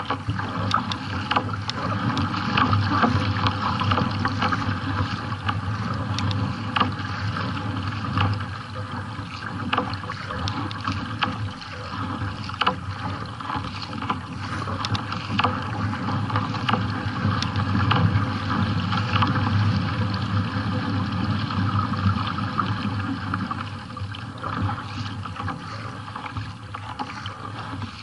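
Water rushing and splashing along the hull of a kayak being paddled through choppy water, with many short sharp ticks scattered throughout.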